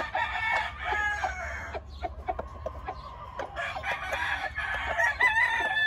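Game roosters crowing, several long crows overlapping one after another, the last one falling in pitch near the end.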